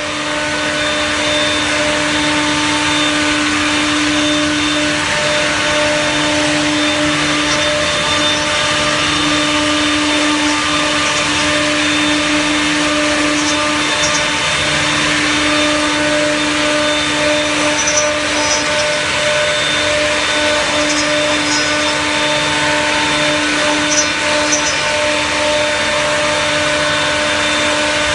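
CNC multi-spindle mortising machine running, its router spindles giving a steady hum over a constant rushing noise as the bits cut mortises into wooden rails. A few short high hisses come through near the middle.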